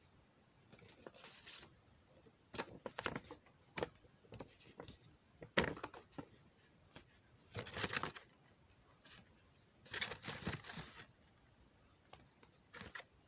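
An envelope being opened and handled by hand: irregular bursts of rustling and crinkling, with the longest spells a little past the middle and again about three-quarters of the way through.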